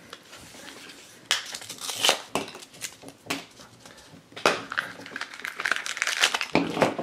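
Plastic blind-bag toy packaging being handled and opened: scattered clicks and crinkles of a plastic fart blaster pack, growing denser and more continuous in the second half.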